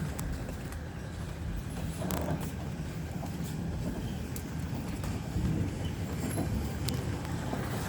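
Passenger train running along the track: a steady low rumble with a few sharp clicks and knocks scattered through it.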